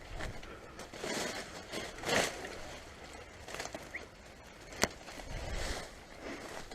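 Rustling and crunching steps through dry brush, in several swells, with one sharp click about five seconds in.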